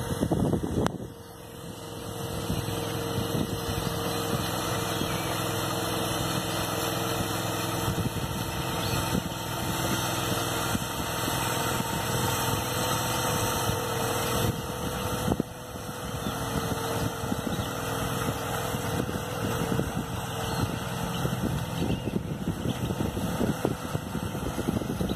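Engine of a floating weed-clearing tractor running steadily as it drives its paddle wheels through the water, with churning water beneath the engine note. The level dips briefly about a second in and again about two-thirds of the way through.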